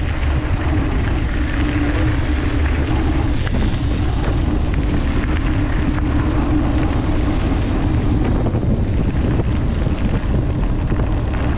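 Wind rushing over a mountain biker's camera microphone while riding: a loud, steady rumble with a constant low hum underneath.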